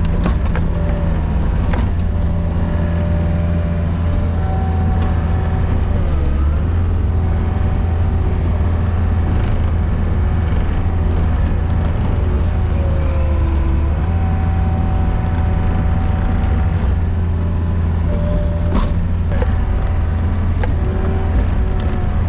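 Gehl RT65 tracked skid steer's diesel engine running hard with a steady hydraulic whine. The pitch sags briefly about six seconds in and again around thirteen seconds as the machine lugs under load climbing a hill in deep snow.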